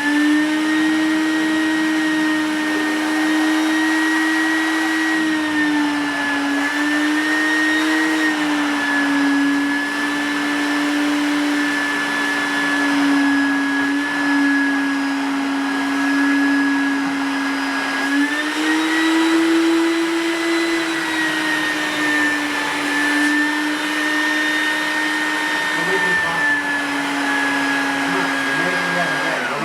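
Small electric motor appliance, most likely an electric coffee grinder, running with a steady high whine for about half a minute. Its pitch shifts slightly partway through, and it winds down at the end.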